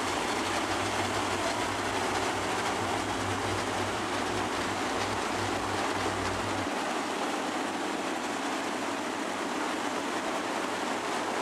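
A pack of dirt-track modified race cars' V8 engines running at slow pace speed as the field rolls past in formation, a steady engine drone. A low hum under it drops away about two-thirds of the way through.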